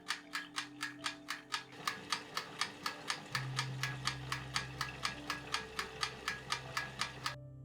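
The mechanical movement of a 1967 Rolex Date 1500 ticking, heard close up, an even run of sharp ticks at about five a second that stops just before the end.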